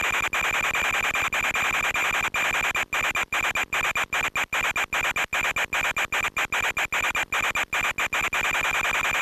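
Loud radio static from an analog FPV video link: a dense hiss with a steady high whistle. In the middle seconds it cuts out briefly many times in quick succession, the sign of a breaking-up signal.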